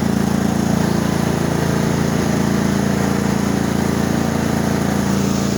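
Riding lawn mower's engine running at a steady speed, an even drone with no change in pitch.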